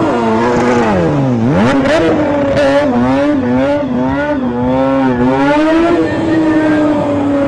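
Sport motorcycle engine revving hard. Its pitch drops steeply about a second in and climbs back, then rises and falls over and over with the throttle before holding steady near the end. A few sharp crackles come around two seconds in.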